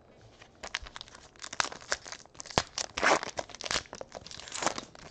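Foil trading-card pack wrapper crinkling and tearing as it is opened by hand, a run of short rustles and crackles.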